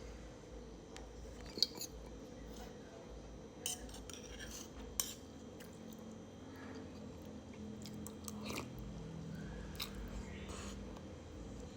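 A few scattered light clinks of cutlery against dishes over a faint steady hum.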